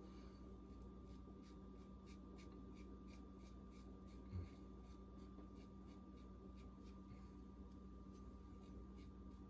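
Muhle R41 open-comb double-edge safety razor scraping through lathered beard stubble on the chin and jaw: faint, crisp scratches, about three a second, with one low bump about four seconds in.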